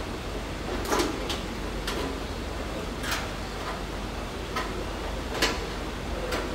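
Scattered light clicks and knocks, about seven over several seconds and unevenly spaced, from hand work on a Mitsubishi ASX's open tailgate, over a steady low workshop hum.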